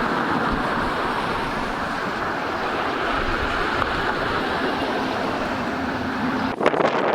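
Strong, gusty wind rushing steadily. About six and a half seconds in, gusts start buffeting the microphone with sharp, crackling hits.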